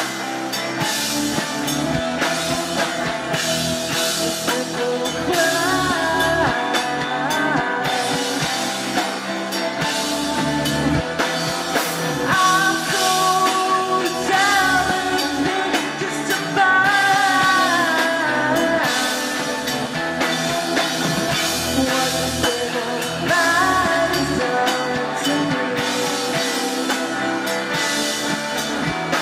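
Live rock band playing loud: electric guitars, bass guitar and drum kit, with a voice singing a melody over them.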